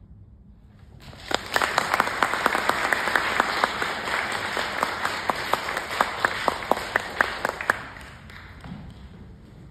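Audience applauding, starting about a second in, with one set of sharp, loud claps standing out above the rest; the applause dies away near the end.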